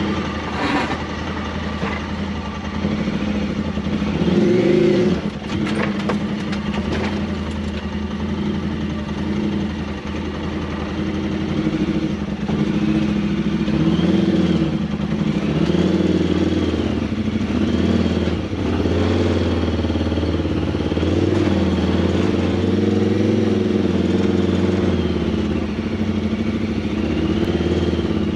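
Side-by-side UTV engine running under throttle, its pitch rising and falling again and again as it revs up and eases off.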